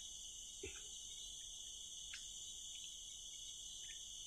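Steady night chorus of crickets, a continuous high-pitched trill, with one soft knock just under a second in.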